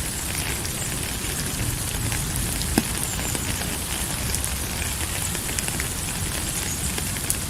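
Steady rain falling, an even hiss with many scattered drop clicks and a low rumble underneath; one sharper drop about three seconds in.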